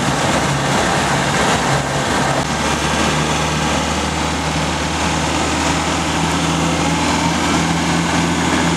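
Land Rover engine running under way, with road and tyre noise heard from inside the cabin; its note shifts about two and a half seconds in.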